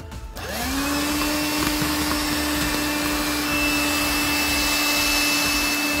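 Electrolux Rapido handheld cordless vacuum switched on about half a second in. Its motor whine rises to speed and runs steadily with a rush of air as it picks up paper scraps, then begins to wind down at the very end. It is running on the 8.4 V lithium-ion pack that replaced its dead 7.2 V nickel-metal-hydride battery.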